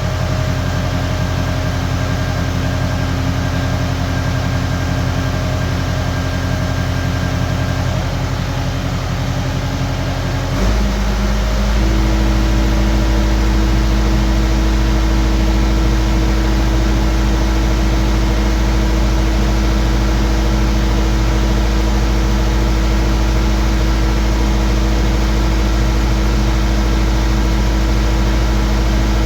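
Skid steer engine running steadily. About ten seconds in, its note changes and grows louder, as the engine speeds up or takes on load.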